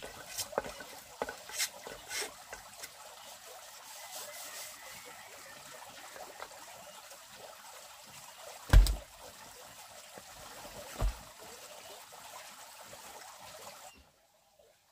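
Water trickling steadily, with scattered light clicks in the first few seconds and two heavy thumps about nine and eleven seconds in; it stops abruptly just before the end.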